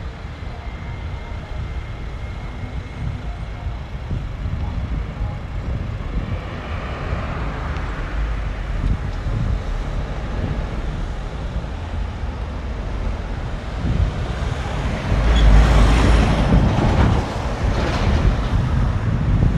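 Road traffic rumbling steadily, growing loudest about fifteen seconds in as a vehicle passes close by.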